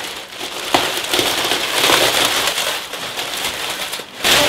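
Christmas wrapping paper and sticky tape crinkling and tearing as someone wrapped up in it struggles to break free. There is a sharp snap about a second in, and a louder burst of tearing near the end.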